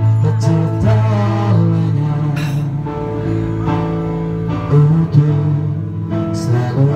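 Electronic keyboard playing a slow ballad live: sustained chords over held low bass notes that change every second or so.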